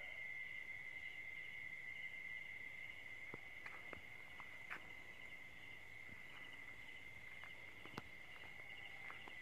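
Insect chorus of crickets in the dark: one steady high trill with a faster pulsing chirp above it. A few faint clicks and taps sound now and then, the sharpest about eight seconds in.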